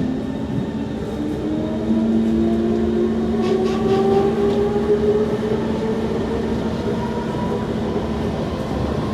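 Kawasaki C151 MRT train's traction motors whining as the train gains speed, several tones climbing slowly in pitch over a steady lower hum. The wheels rumble on the track, heard from inside the car.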